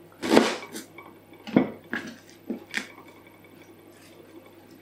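Halved leeks being pushed and crammed into a glass baking dish: a few light knocks and rubs of the vegetables against the glass, the first about a third of a second in the loudest.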